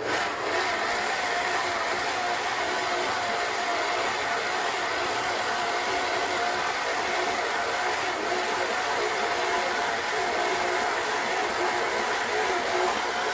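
Electric stand mixer switching on and running at a steady speed with a steady motor whine, its flat beater working flour into creamed butter-and-sugar cookie dough in a steel bowl.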